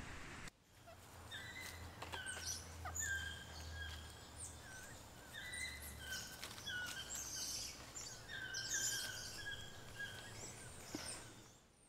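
Squirrel monkeys chirping: many short, high-pitched peeps with quick pitch slides, coming in rapid, overlapping runs for about ten seconds.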